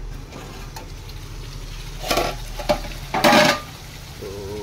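Chicken curry sizzling in an aluminium pan on a gas stove, with two loud metal clatters about two and three seconds in as the metal lid comes off the pan and the spatula scrapes it.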